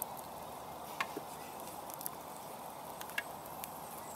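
A wood campfire crackling: scattered sharp clicks and pops, about one a second, over a steady hiss, with a wooden spoon working stew in a metal cookpot over the flames.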